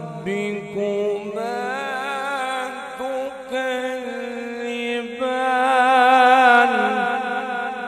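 A male qari reciting the Quran in melodic tajweed style into a microphone, drawing out long vowels with wavering ornamented turns and no clear words. The phrase swells to its loudest about six seconds in and eases off near the end.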